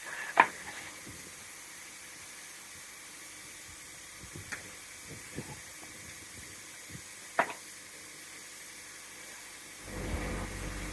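Steady hiss with a few sharp knocks or clicks, the loudest about half a second in and again about seven seconds in; a louder rushing noise comes up near the end.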